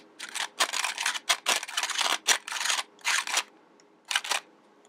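Plastic gears of a toy hand drill model (Engino building set) clicking and rasping as the crank is turned by hand, in short uneven bursts about two a second with a pause near the end; the gears are not turning as smoothly as they should.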